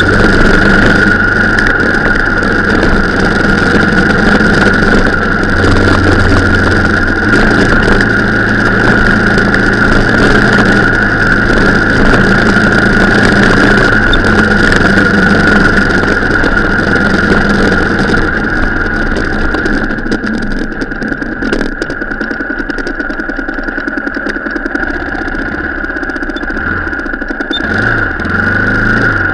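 Off-road vehicle's engine running under way, with a steady high whine over it. It eases off and gets quieter about two-thirds of the way through.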